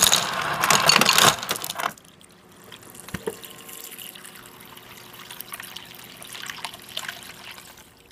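Refrigerator door dispenser filling a glass bowl: loud clattering for about the first two seconds, likely ice cubes dropping in, then a quieter steady stream of water running onto the ice.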